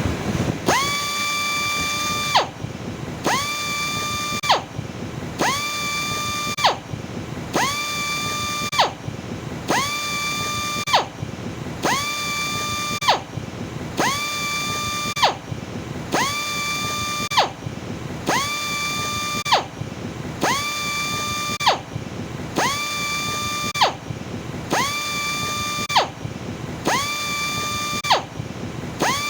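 Electric sander grinding: a high, steady whine over a rough grinding noise. The whine cuts out briefly about every two seconds, with a short loud burst at each break, in an even, repeating rhythm.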